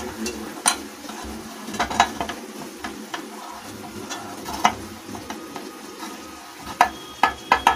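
Hands rubbing oil around the inside of an aluminium baking tin, with a few sharp clicks and knocks as the tin is handled and tilted, over a steady low hiss.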